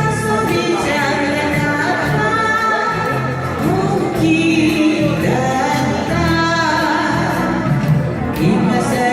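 A woman singing a Japanese kayōkyoku ballad over a backing track, with long held notes that waver in vibrato.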